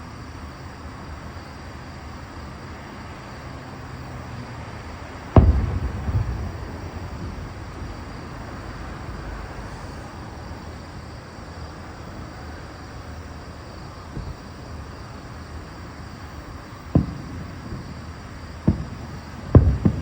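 Fireworks shells bursting overhead: one loud boom about five seconds in with a rumbling echo after it, then several sharper bangs near the end, over a steady background rumble.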